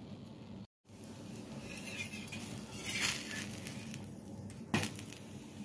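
Metal utensils working on an iron tawa: a short scrape of a metal spatula against the pan about three seconds in and a sharp metallic clink near the end, over a steady low hum.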